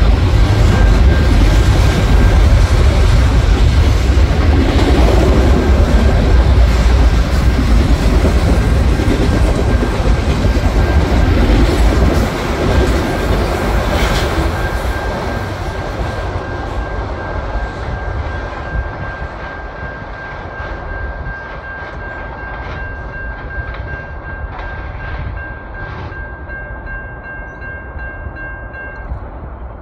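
VIA Rail passenger train's cars rolling past with a loud rumble and wheel rattle, fading as the last cars go by about 12 to 16 seconds in and staying much quieter after that. A thin, steady high tone sounds throughout.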